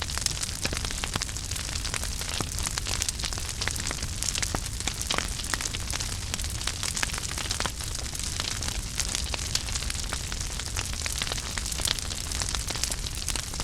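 Wood fire crackling steadily in a fireplace, with many small sharp pops and snaps over a soft hiss and low rumble of the flames.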